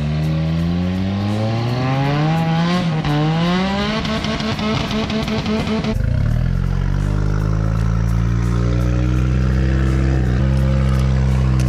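Off-road vehicle's engine revving, its pitch climbing over the first few seconds with a brief dip near three seconds. About halfway through it abruptly drops to a steady, lower running note.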